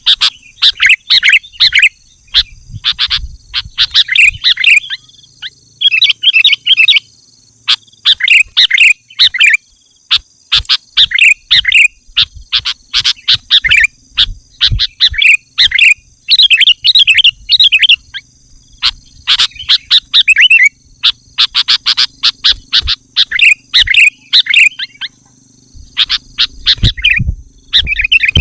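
Sooty-headed bulbul (kutilang) singing in lively, constant form: short bubbly whistled phrases repeated every second or two, with a faint steady high-pitched tone beneath.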